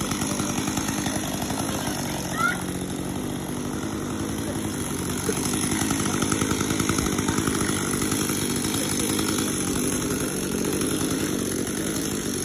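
A chainsaw's small two-stroke engine running steadily, a little louder for a few seconds midway. There is a brief high-pitched squeal about two seconds in.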